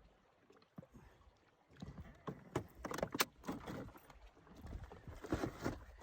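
Canoe on choppy, wind-blown water: irregular splashes and knocks against the hull, starting about two seconds in, over a low rumble of wind.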